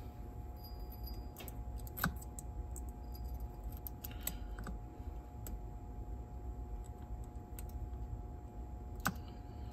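Scattered light clicks and taps of a metal hook against the small parts of a cassette deck's tape transport as a drive belt is worked onto the motor pulley, over a steady low hum. The sharpest clicks come about two seconds in and again near the end.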